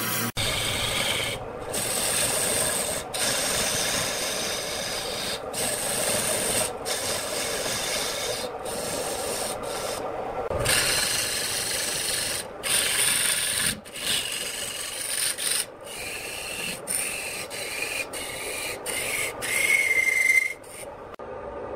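A turning tool cutting into a large block of wood spinning on a wood lathe, a continuous rasping scrape as shavings peel off, broken by several brief gaps. A short high-pitched squeal sounds near the end.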